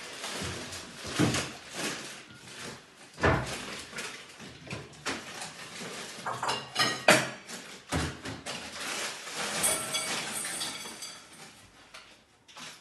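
Household clatter: an irregular run of knocks and clinks with scraping or rustling between them, dying down near the end.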